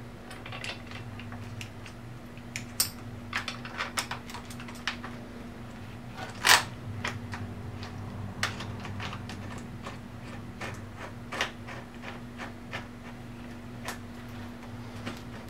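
Small metal clicks and taps as bolts are handled and turned by hand in a motorcycle's handlebar clamp, with one sharper clack about six and a half seconds in.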